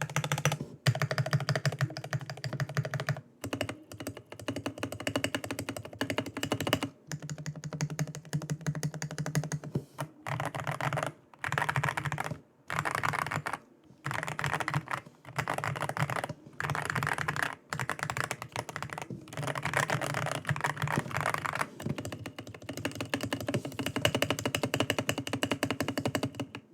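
Akko PC75B Plus mechanical keyboard, modded for its sound, typed on quickly. The key clicks come in runs lasting one to a few seconds, with short pauses between them.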